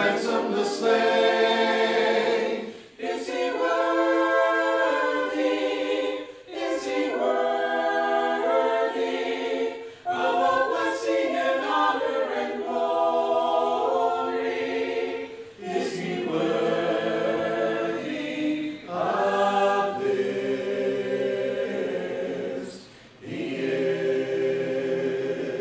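Voices singing a slow worship song in phrases of a few seconds each, with short breaks between them and little or no instrumental backing.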